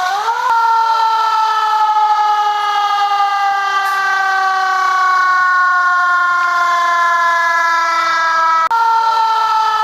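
A siren sounding one rich, steady tone that rises quickly at the start, then slowly falls in pitch, breaks off for a moment near the end, jumps back up and starts falling again.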